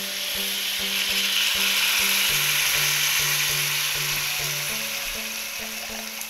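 Water poured into a hot wok of sautéed onion, tomato and chillies, hissing as it hits the hot oil. The hiss builds over the first two seconds and fades slowly toward the end.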